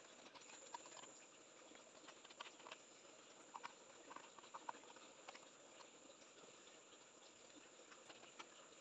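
Near silence with faint scattered ticks and rustles of stiff buffalo card paper being handled, over a faint steady high-pitched whine.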